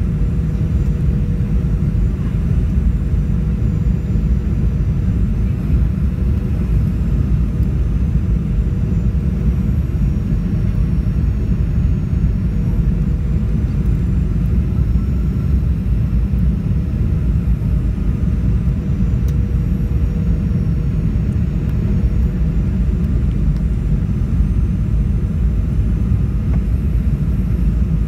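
Steady cabin noise of a Boeing 737-800 on final approach, heard from a seat beside the wing: a deep, even rumble of airflow and the CFM56-7B turbofan engines, with a faint high whine that drifts slightly in pitch above it.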